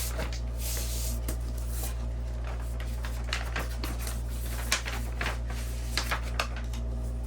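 Light rustling and scattered clicks of packaging and shelf hardware being handled, over a steady low hum.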